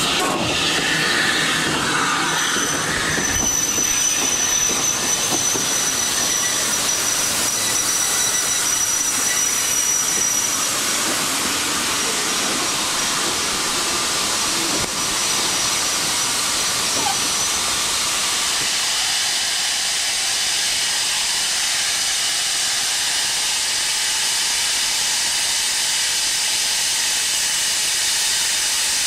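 Steam locomotive close alongside with a loud, steady hiss of escaping steam. The low rumble drops away about eighteen seconds in, leaving only the steady steam hiss.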